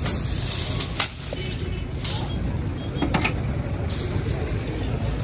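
Low steady rumble of street traffic, with a few sharp knocks and clatters of utensils at a food stall about a second apart, and a crinkle of aluminium foil near the end.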